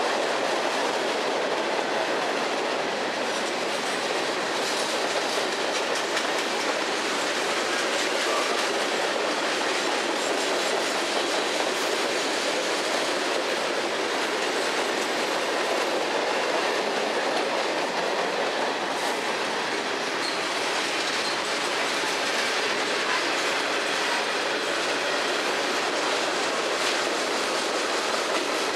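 Freight cars of a long CSX freight train rolling past at steady speed: a steady rush of steel wheels on rail, with light clicks as the wheels cross the rail joints.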